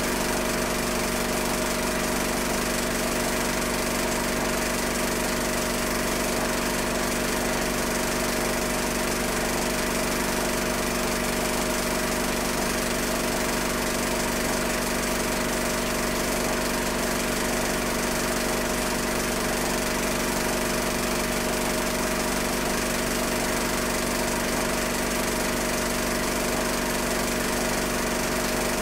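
Steady motor hum with several fixed tones over a hiss, unchanged even across a cut in the picture: the running noise of a film projector while silent home movies are transferred.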